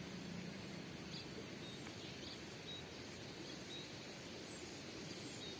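Quiet outdoor ambience: a steady faint hiss with a few short, faint high chirps scattered through it.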